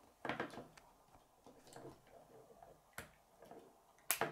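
K'nex plastic rods and connectors clicking and rattling as they are handled and snapped together, with a few short sharp clicks, the loudest near the end.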